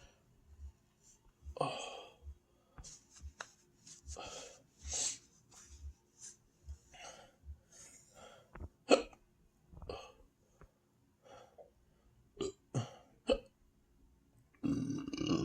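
A person hiccupping and belching over and over, from a stomach stuffed by overeating. Short sharp hiccups are mixed with longer burps, the loudest a sharp hiccup a little past halfway.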